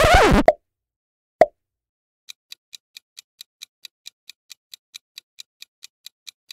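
Quiz sound effects: a brief sweeping transition sound with gliding pitches, a single pop about a second and a half in, then a countdown clock ticking evenly, about four to five ticks a second, from a little after two seconds in.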